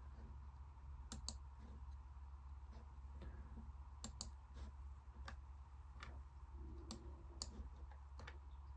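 Faint computer clicking: a dozen or so irregular, sharp clicks over a low steady hum.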